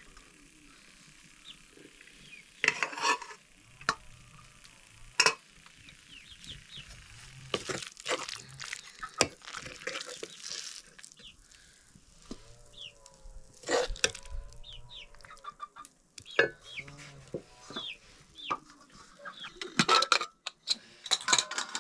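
A metal spoon or ladle stirring and scraping in a cooking pot, with scattered clinks and a light sizzle of food frying. Chickens cluck now and then.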